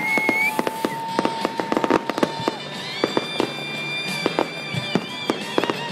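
Fireworks display: a rapid, irregular run of bangs and crackling pops from shells bursting overhead. Steady held tones sound over it, one for the first couple of seconds, then several higher ones together from about halfway through.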